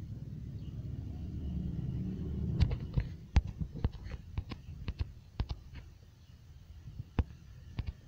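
A low rumble for the first two and a half seconds, then irregular sharp clicks, a few a second, from typing on a smartphone's touchscreen keyboard.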